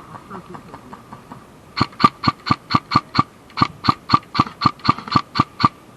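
Electric airsoft gun's MOSFET beeping through its motor as a low-battery warning. Faint quick beeps at first, then, a little under two seconds in, a run of loud sharp beeps about four a second, with a short break near the middle.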